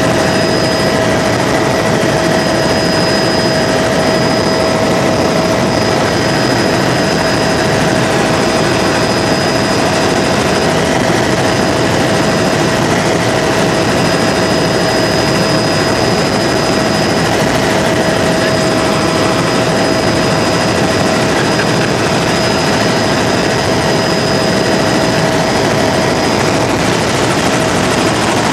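Helicopter in level flight heard from inside its cabin: a steady rushing noise of engine and rotor, with a few steady whining tones held throughout.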